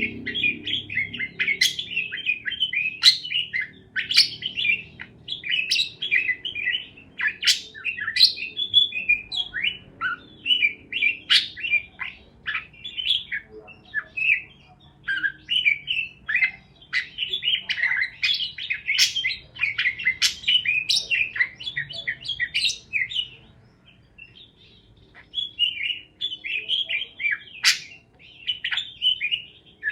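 Parakeets chirping and chattering continuously, a fast run of short high chirps and sharp clicks, with a brief lull about three-quarters of the way through.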